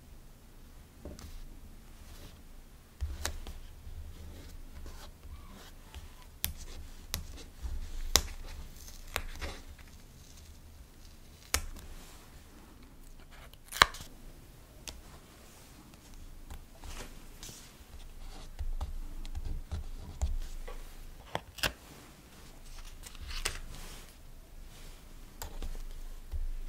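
Paper stickers being peeled from their sheet and pressed onto a journal page, with paper rustling and scattered sharp taps and clicks, the loudest about 14 seconds in.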